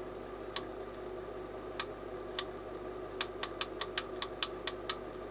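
Clicks of a front-panel push button on a Global Specialities 8201 pulse/function generator, pressed again and again to step the output amplitude down: a few spaced presses, then a quick run of about eight in the last two seconds. A steady electrical hum runs underneath.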